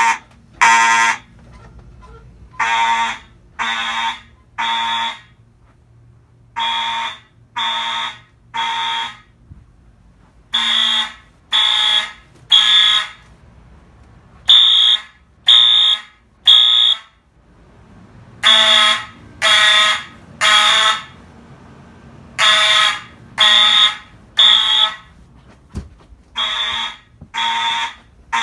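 Fire alarm horns sounding the temporal-three evacuation pattern: three loud half-second blasts about a second apart, then a short pause, over and over. The alarm was set off by a manually pulled Simplex pull station.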